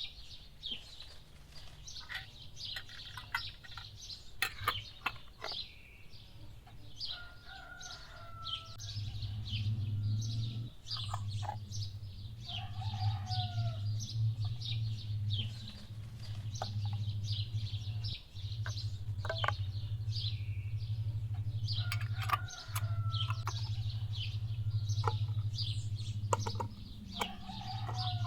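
Hens clucking and small birds chirping, with scattered clicks and knocks. About nine seconds in, a low steady hum starts and becomes the loudest sound, breaking off briefly a few times.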